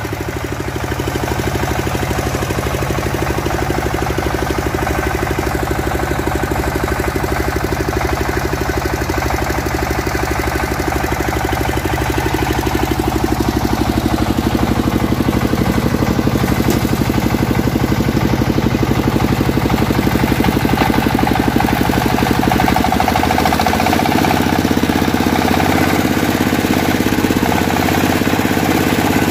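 Mobile rice thresher driven by its red EMEI single-cylinder diesel engine, running steadily with a fast, even pulse. About three-quarters of the way through, the deep low part of the sound thins out and a higher hum comes up.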